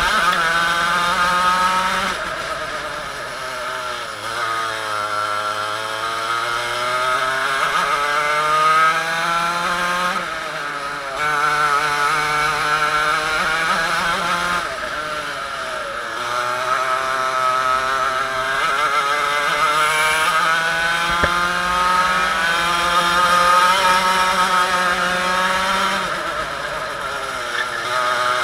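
Two-stroke TKM kart engine at racing speed, heard on board: the revs climb steadily along each straight, then drop off sharply into the corners, over and over.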